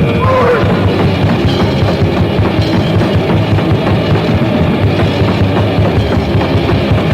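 Crust punk band playing a fast song, with pounding drums under a dense wall of distorted guitar and bass. A short bending tone cuts through just after the start.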